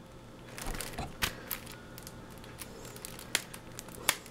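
Plastic packaging being handled: scattered crinkles and sharp clicks, a few of them louder, about a second in and near the end.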